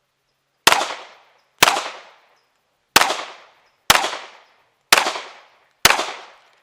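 Six pistol shots fired about a second apart, each sharp report followed by a short ringing tail. They are a 2-2-2 string, two shots on each of three targets, fired before slide lock.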